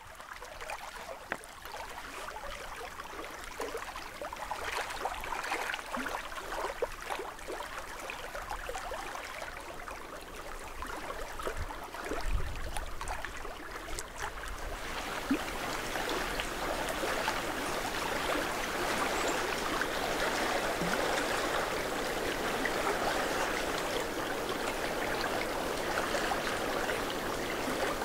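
Small waves lapping and trickling against a rocky lake shore, with scattered little splashes; about halfway through the wash thickens into a steady rushing hiss.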